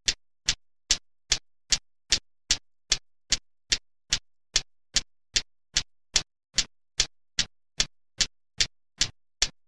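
Steel balls of a Newton's cradle clicking in an even rhythm, about two and a half sharp clicks a second, with silence between them.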